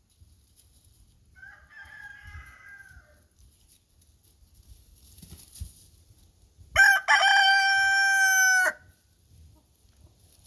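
Rooster crowing once, a loud held crow about two seconds long in the second half. A fainter, shorter call comes a few seconds earlier.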